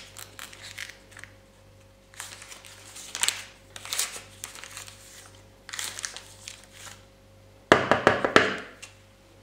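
Baking powder sachet crinkling and tearing as it is handled and opened, in several short rustles. About 8 seconds in, a metal spoon scrapes and knocks against a plastic mixing bowl and whisk in a quick cluster of clicks, the loudest part.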